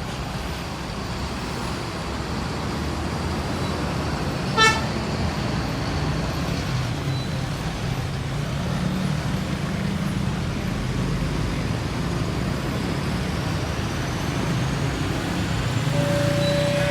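Steady rumble of heavy road traffic with a short, loud horn toot about four and a half seconds in. Near the end a bus's telolet musical horn sounds its first note, the start of a tune of alternating notes.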